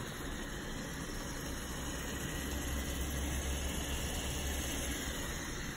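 Eggs and oyster mushrooms frying in oil in a pan: a steady sizzle with a low rumble underneath.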